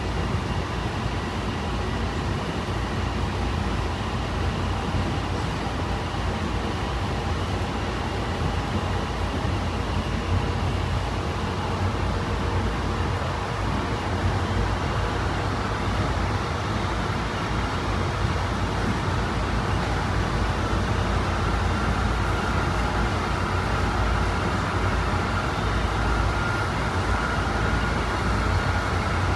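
Honolulu Skyline rapid-transit train running along the line, heard from inside the car: a steady rumble and rolling noise. A faint high whine comes up and grows stronger over the last third.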